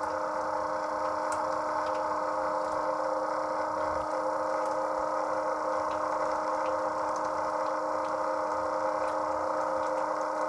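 Battery-powered oil changer pump running steadily with a constant hum as it draws thick old oil out of a Cat 3208 diesel's sump. The pump is labouring on oil that is cooler and thicker than ideal.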